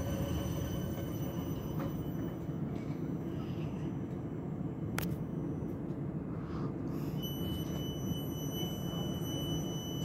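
Midland Metro CAF Urbos 3 tram pulling slowly into a stop and halting, with a steady low rumble and a steady high-pitched electrical whine. The whine grows strong in the last few seconds as the tram stands. A single sharp click comes about halfway through.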